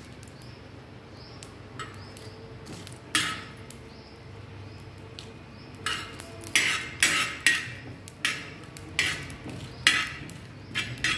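Steel spoon scraping and clinking on an iron tawa while stirring cumin seeds and a dried red chilli as they dry-roast. There is a single stroke about three seconds in, then quick repeated strokes from about six seconds on, roughly two a second.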